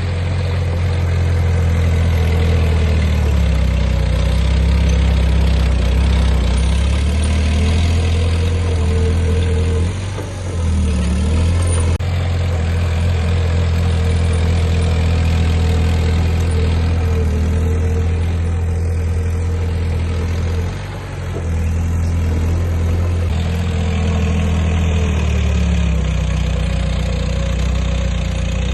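Heavy earthmoving machine's diesel engine running steadily, with a deep drone. It eases off briefly twice, about ten and twenty-one seconds in, then picks up again.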